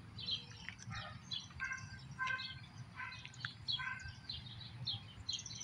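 Songbirds chirping and singing: many short high notes, some in quick repeated runs, over a low steady outdoor rumble.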